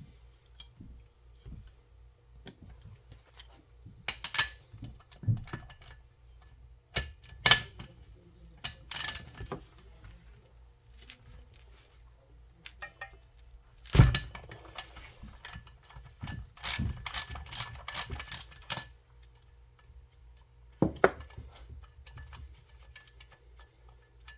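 Spark plug being unscrewed from a Husqvarna 550XPG Mark II chainsaw with a wrench: scattered metal clicks and knocks of the tool on the plug, the loudest knock about 14 seconds in and a quick run of clicks a few seconds later.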